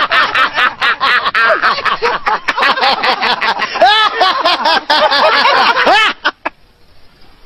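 A group of men laughing loudly and heartily together, which stops abruptly about six seconds in.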